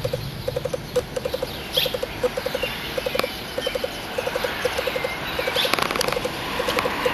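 Animal calling: a low, rapid pulsing call in short bursts, repeating about twice a second, with a few higher bird chirps over it. Wind noise builds near the end.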